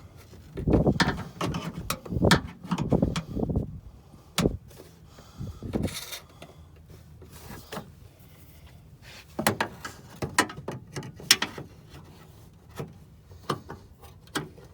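Pliers and hands working a small part loose in a tight spot in a pickup's interior: a dense run of rattling clicks and knocks in the first few seconds, then scattered sharp clicks later on.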